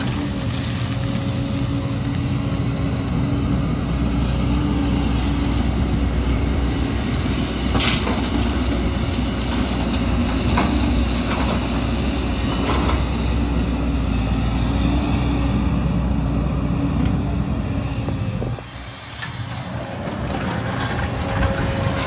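JCB tracked excavator's diesel engine running steadily under load as the bucket digs into rocky soil, with a few sharp knocks of rock and steel. The engine goes quieter for a moment about three-quarters of the way through, then comes back.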